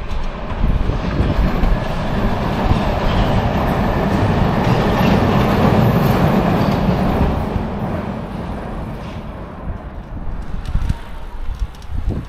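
A train passing: its rumble and rail clatter swell to a peak about five or six seconds in, then fade away.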